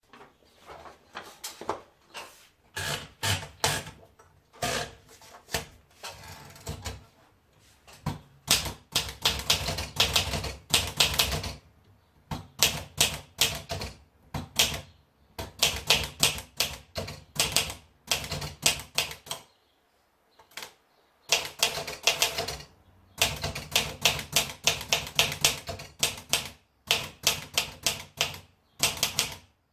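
PMC Elite 44 typewriter being typed on: runs of rapid key strikes in bursts, with short pauses between them and a longer pause about two-thirds of the way through.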